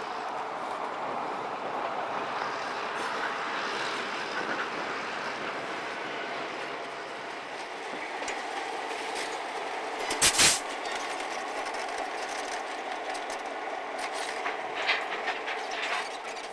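Canadian National EMD 'Geep' diesel road-switchers running as they pull a cut of covered hopper cars past, a steady engine drone mixed with wheels clacking over the rail joints. There is one sudden loud knock about ten seconds in, and a few smaller clicks near the end.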